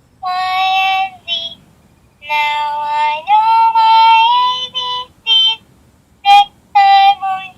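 High-pitched, child-like voice singing a few short phrases with held notes, the longest one stepping up in pitch partway through.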